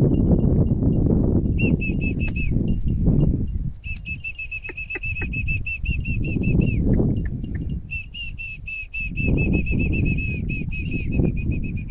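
Wind buffeting the microphone in uneven gusts, with a bird calling in the background in three fast runs of short, identical high chirps.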